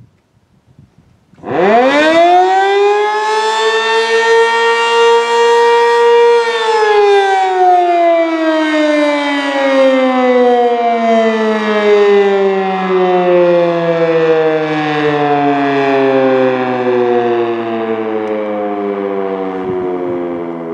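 Sentry 7V8-B outdoor warning siren sounding its daily noon signal. It winds up quickly about a second and a half in and holds a steady wail for about four seconds. It then winds down in a long, slowly falling tone.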